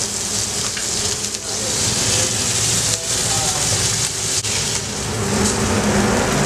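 Cheese-topped pork burger patty sizzling hard in a hot black carbon-steel pan over a flaring gas burner, over a steady low rumble. A metal spatula scrapes under the patty a little past halfway.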